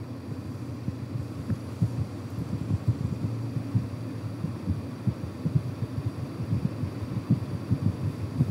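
Low, uneven rumble with many small irregular pulses, a horror-film soundtrack effect.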